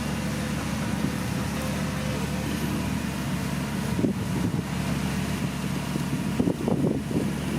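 Bulldozer's diesel engine running steadily under load, with uneven rough bursts of noise about four seconds in and again near the end.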